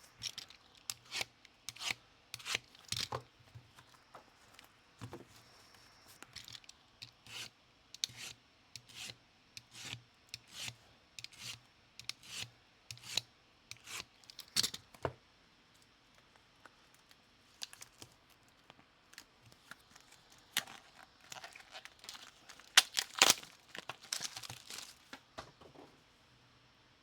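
Foil trading-card packs being torn open by hand: a long run of short, sharp rips and crinkles at an uneven pace. They thin out midway, come thick again near the end, then stop.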